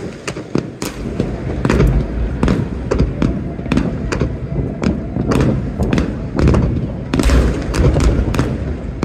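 Fireworks display: a rapid, irregular barrage of sharp bangs and crackles over continuous deep booms.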